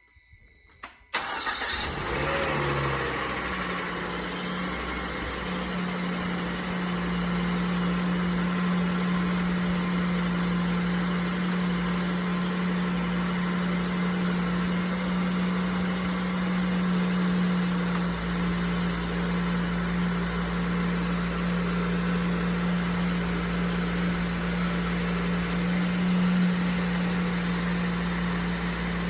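Volvo C70 T5's turbocharged five-cylinder engine cranking and firing up from cold about a second in, with a brief rev as it catches, then settling into a steady fast idle. The engine has the ticking noise on cold start that the owner is recording it for.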